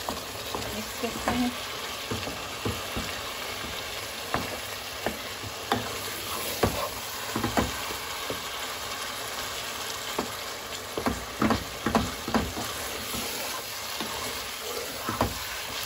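Raw minced meat sizzling in hot fried masala in a pan while a spatula stirs and breaks it up, with irregular knocks and scrapes of the spatula against the pan over a steady sizzle.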